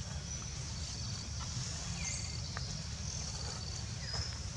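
Forest ambience: a high pulsing insect trill and a few short bird chirps over a steady low rumble.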